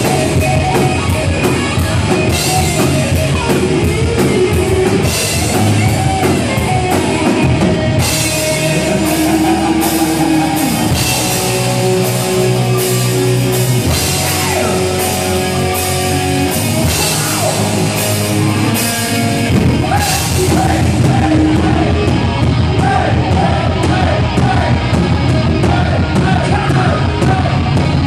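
Live rock band playing loudly: electric guitars, bass guitar and drum kit, with a male singer on a microphone.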